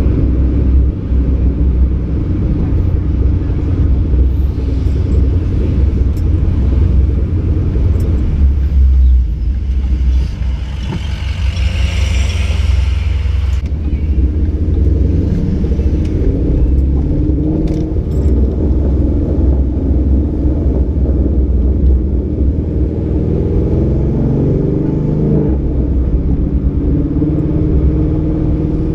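Ford Mustang 5.0's V8 exhaust, through a Roush axle-back and off-road X-pipe, rumbling steadily while driving. Its pitch rises and falls as the revs change in the second half.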